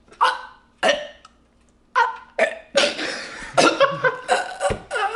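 A man faking choking with his voice: short strangled, gulping throat noises, a few at first and then a denser run from about halfway, breaking into a cough.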